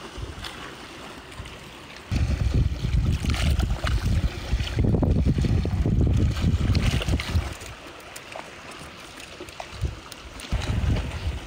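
Wind buffeting the microphone in irregular gusts of low rumble, easing off briefly about two seconds in and again from about eight to ten seconds in.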